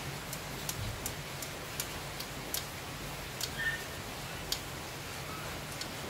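Light, sharp clicks from hands and tools working at a car's steering wheel hub. They come about three a second at first, then more sparsely, over a steady low hiss.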